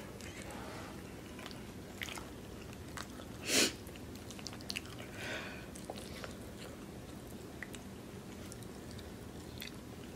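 Close-miked mouth sounds of a person chewing food, with small wet clicks and smacks. There is one short, louder noisy burst about three and a half seconds in.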